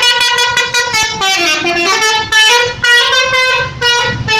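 Bus 'telolet' musical horn playing a fast melody, its notes stepping up and down in pitch several times a second without a break.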